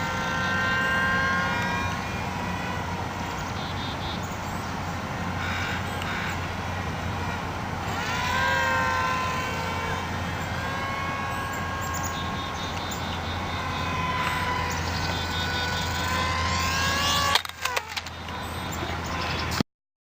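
Small electric R/C airplane motors whining, their pitch rising and falling with throttle over a steady low hum. A few knocks come near the end, then the sound cuts off suddenly.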